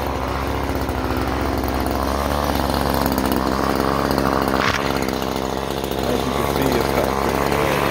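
Echo CS-3510 two-stroke chainsaw running steadily, with one brief sharp click a little past halfway.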